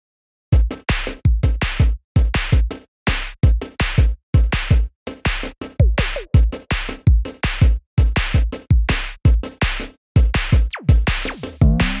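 Electronic background music with a heavy drum-machine beat, starting about half a second in.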